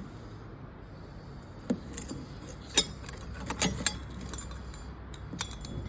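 A handful of light, irregular metallic clinks and taps as a floor lamp's metal arm and its screw are handled and fitted to the mounting plate by hand.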